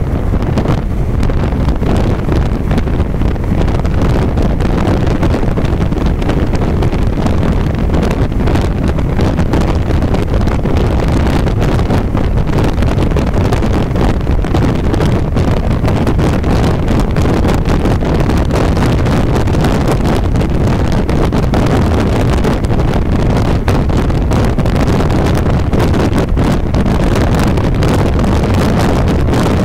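Steady road and wind noise from a car driving at highway speed, with wind buffeting the phone's microphone.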